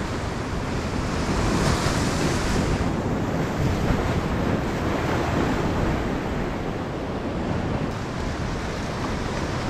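North Sea waves breaking and washing over a rocky shore, with steady wind noise on the microphone.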